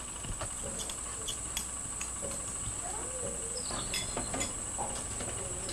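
Outdoor ambience carried by a steady high-pitched insect drone, with a few faint clicks and short faint calls in the middle.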